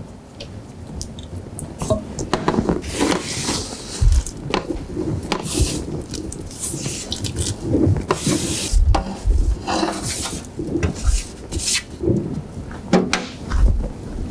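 Roasted vegetable cubes sliding and tumbling off a metal sheet pan into a stainless steel stockpot, with repeated scraping and clattering of metal on metal, and a thump near the end.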